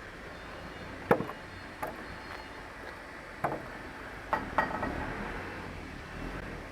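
A handful of sharp knocks and clicks, the first about a second in being the loudest and a pair coming close together near the middle, over a steady low background noise.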